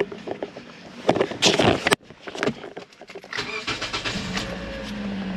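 A few clicks and knocks, then about three seconds in the 2014 Toyota Corolla's 1.8-litre four-cylinder engine starts and settles into a steady idle. It is running with a misfire that has followed the swapped ignition coil to cylinder 3, the sign of a faulty coil.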